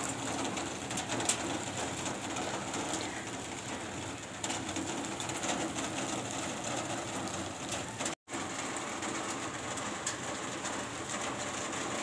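Steady light rain falling, an even hiss with scattered drop taps. The sound cuts out for an instant about eight seconds in.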